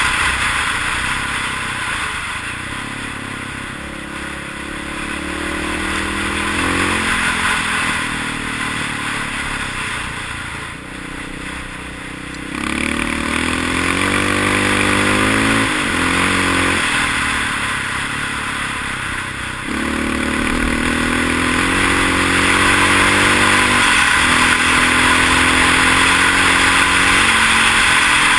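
Honda XR650 single-cylinder four-stroke dual-sport motorcycle under way on a gravel road. The engine note climbs in pitch as it pulls through the gears and breaks off at each shift, eases off for a stretch, then opens up again about twelve seconds in and once more near twenty. Steady wind and road hiss run underneath.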